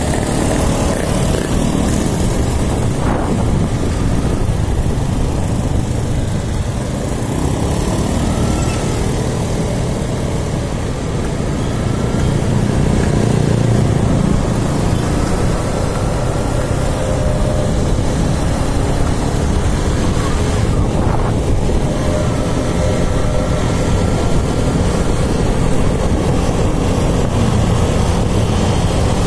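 Motorcycle engine running and road and wind noise while riding in traffic, heard from the rider's seat; a steady loud rush that grows a little louder about halfway through.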